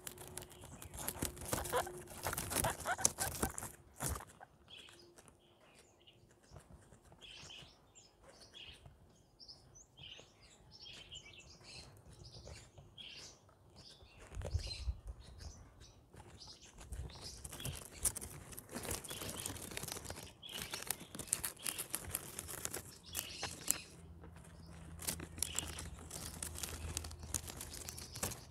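Guinea pigs chewing and nibbling plants, a run of small crunches and rustles, louder in the first few seconds. Short high chirps are scattered throughout.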